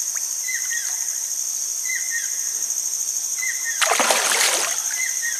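A large fish hooked on a handline thrashing at the water's surface beside the boat: one loud splash about four seconds in, lasting under a second.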